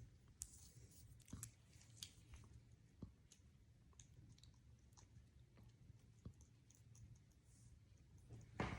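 Near silence with faint, irregularly spaced clicks and taps: an African grey parrot's beak working at a toy ball or a snack.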